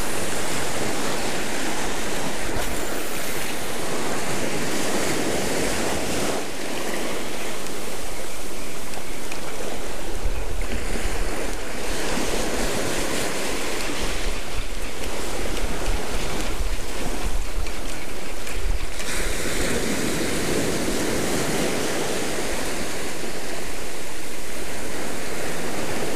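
Surf breaking and washing up over sand and rocks, swelling and easing as the waves come in. Wind buffets the microphone, loudest in the middle stretch.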